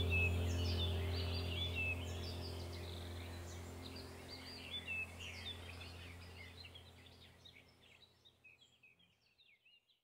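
Chirping birdsong over a steady low drone, a nature-sounds background track, fading out steadily until it is gone near the end.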